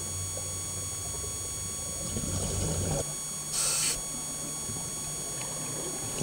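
Underwater scuba breathing through a regulator: a rough bubbling stretch about two seconds in, then a short sharp hiss about a second later, over a steady electronic hum from the camera housing.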